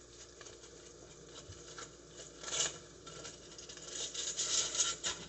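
Sliced sausages sizzling faintly in a frying pan, with louder rustling and scraping bursts about two and a half seconds in and again near the end.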